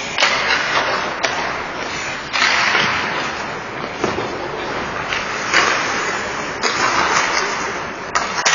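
Ice hockey play: skate blades scraping across the ice in repeated hissing swells, with a few sharp clacks of sticks on the puck.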